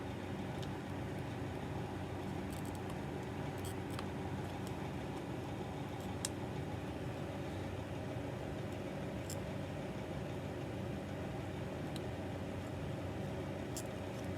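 Steady low background hum with a few faint, scattered clicks of plastic stand parts being handled and fitted.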